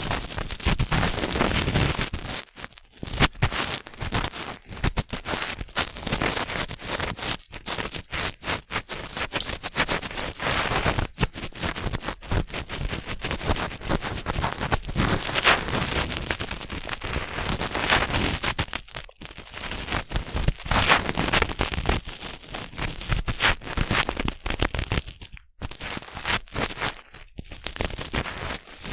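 Cotton swab rubbing and scraping in a binaural microphone's ear: a close, dense scratchy crackle broken by a few brief pauses.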